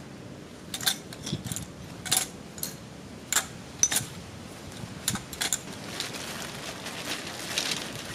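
Stainless steel tent stakes clinking against each other as the bundle is slid into its cloth pouch: separate sharp clinks every second or so. Near the end there is a soft rustle of fabric.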